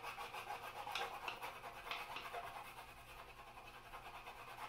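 Wax stick crayon scratching across paper in quick, even back-and-forth colouring strokes.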